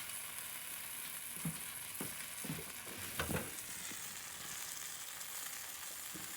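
Grilled cheese sandwich frying in butter and bacon grease in a pan, a steady sizzle, with a few light knocks around the middle.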